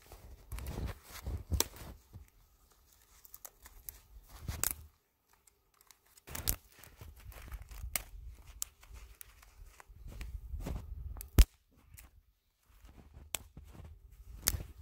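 Dry twigs snapping as they are broken by gloved hands, with rustling and crunching of the brush pile between the snaps; the sharpest, loudest snap comes about eleven seconds in.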